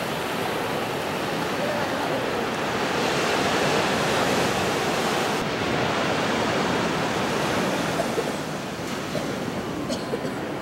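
Surf breaking and washing up a sandy beach: a steady rushing wash that swells about three to five seconds in, then eases a little.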